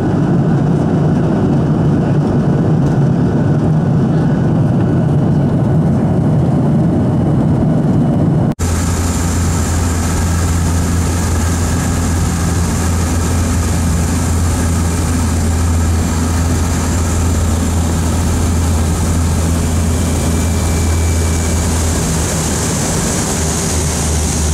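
Airliner cabin noise: a steady low rumble with an airy hiss. About eight seconds in it cuts sharply to the steady, deeper drone of a small propeller plane's engine heard from inside the cabin, flying low on approach to a runway.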